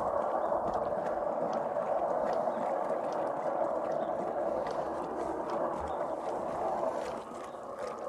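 Homemade 12-volt washing machine running: a battery-powered motor drives a salvaged back-and-forth agitator transmission, churning clothes in soapy water, with faint clicks. It gets a little quieter near the end.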